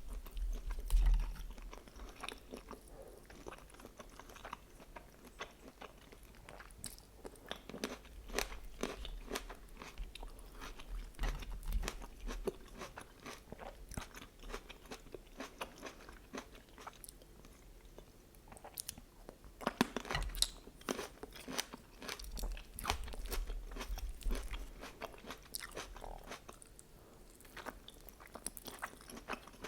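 Close-miked eating of chicken lyulya kebab with vegetables: crunchy bites and chewing, with many short crackling clicks and a louder run of crunches about two-thirds of the way through.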